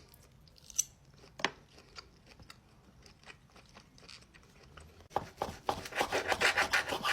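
Scattered small clicks, then from about five seconds in a rapid run of rasping strokes: a knife sawing back and forth through a cooked steak on a board.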